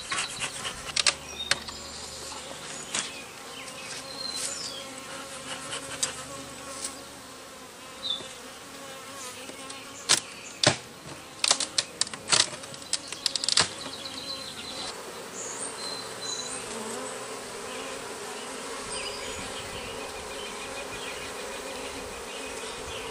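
Honeybees buzzing around an opened hive in a steady hum, with sharp clicks and knocks scattered through the first half or so.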